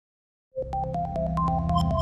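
Electronic logo jingle: silence for about half a second, then a run of quick, short synthesizer notes over a steady low bass.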